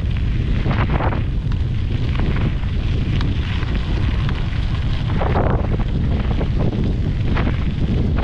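Wind buffeting the microphone: a constant heavy low rumble, with gusts flaring up a few times.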